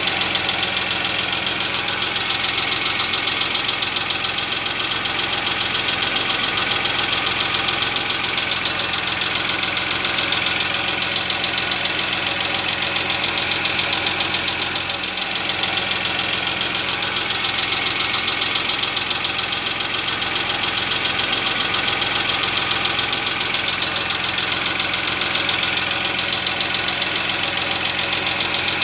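Car engine idling, heard close to the exhaust at the catalytic converter and its clamped inlet pipe. It makes a fast, even ticking pulse.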